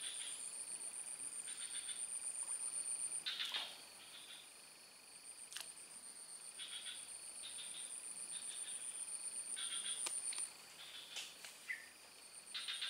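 Insects calling: a high, steady, finely pulsing trill that stops about three seconds in and starts again a couple of seconds later, with short chirping calls repeating every second or two. Two faint clicks.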